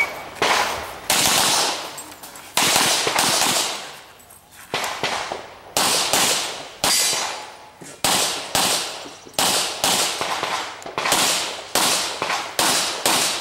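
Handgun shots fired in quick pairs, about twenty in all, each shot cracking sharply and ringing out briefly, with short gaps between the strings.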